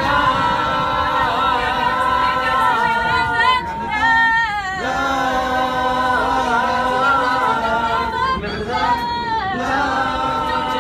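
Unaccompanied group singing: a vocal ensemble holds long chords while a voice slides through melismatic runs, about a third of the way in and again near the end.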